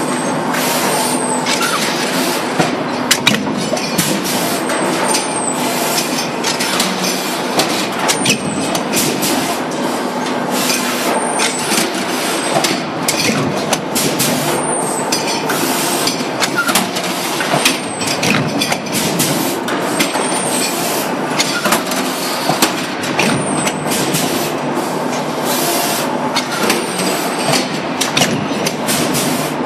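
Mechanical stamping presses running with a pneumatic sheet-metal transfer feeder cycling: a steady factory din full of metal clanks and knocks, with air hiss and a short high squeak about every three seconds.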